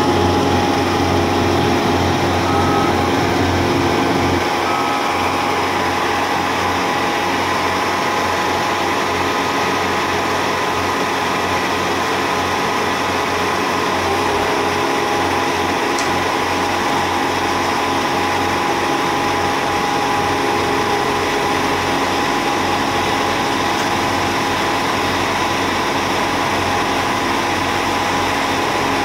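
Somero laser screed running steadily: a constant engine drone with thin, steady high tones over it.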